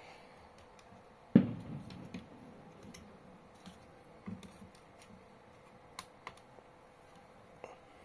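A few scattered sharp clicks and small knocks from handling the audio player board and its controls while setting it up for a test, the loudest about a second and a half in.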